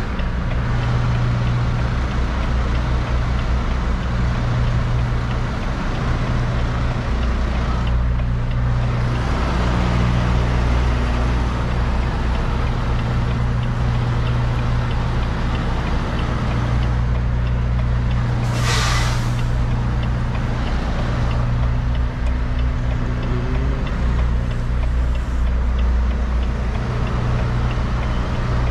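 Semi truck's diesel engine running at low speed, a steady low drone heard from inside the cab, with one short hiss of released air from the air brakes about two-thirds of the way through.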